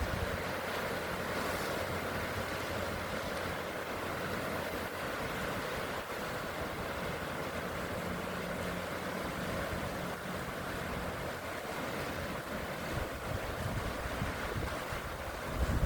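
Sea waves surging and washing, with wind buffeting the microphone and a low steady hum underneath for much of it.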